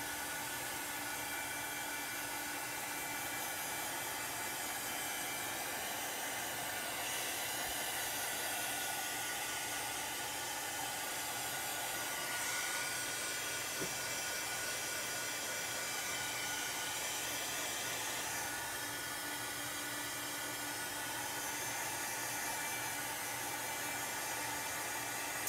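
Small handheld electric dryer blowing steadily, a constant whir and hiss whose tone shifts slightly as it is moved, drying wet chalk ink on a fabric banner.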